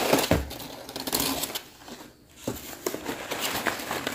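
Brown kraft packing paper rustling and crinkling as a plant is pulled from a shipping box and unwrapped, with a thump near the start and a short lull around the middle.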